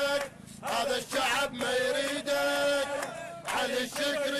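Men's voices chanting a street protest chant in held, rhythmic phrases about a second long, with short breaks between lines.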